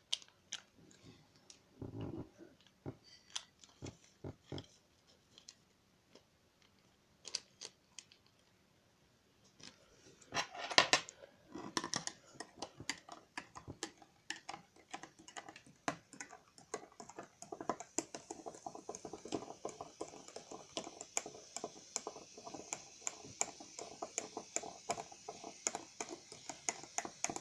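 Sparse rustles and taps of a paper sachet of baking powder being handled, then a metal spoon stirring the baking powder into water in a tall drinking glass, clinking quickly and continuously against the glass from about ten seconds in.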